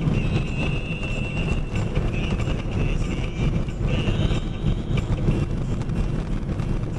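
Box truck driving: a steady low rumble of engine and road inside the cab, with many small rattles and knocks.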